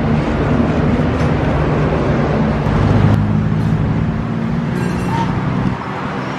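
Street traffic with a vehicle engine running close by: a steady low hum over road noise that drops away near the end.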